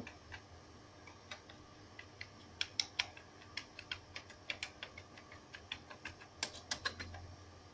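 Computer keyboard keys being pressed one at a time, giving irregular sharp clicks, some in quick pairs, with a louder run of clicks about three seconds in and again near the end.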